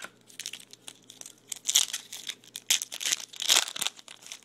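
Foil wrapper of a Topps Chrome baseball card pack being torn open and crumpled by hand: a run of irregular crinkling crackles, loudest in the second half.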